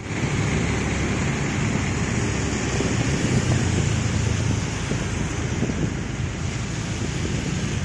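Steady rushing noise from a moving vehicle on a rain-soaked road: wind on the microphone and tyres running over wet tarmac, dropping a little about halfway through.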